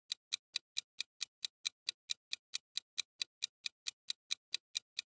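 Quiz countdown timer's clock-ticking sound effect: fast, even ticks about four to five a second, marking the answer time running out.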